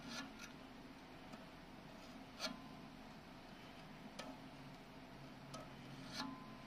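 Hobby knife blade cutting and shaving plastic at the rear fork end of a Xiaomi M365 scooter frame: faint, scattered scraping clicks, about six in all, the loudest about two and a half seconds in.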